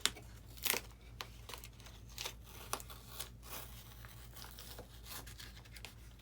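Tape being peeled off and parts of a foam RC airplane pulled apart by hand: a string of short, irregular rips and crinkling scrapes, the sharpest near the start and about a second in. A steady low hum runs underneath.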